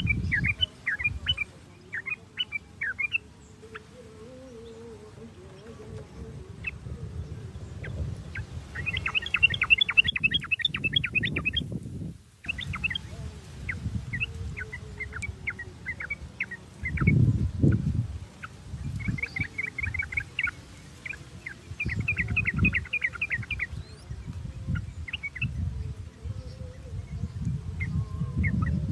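Yellow-vented bulbul (trucuk) singing: rapid bursts of bubbly chattering notes, with scattered single calls between the bursts. Low rumbles come and go underneath.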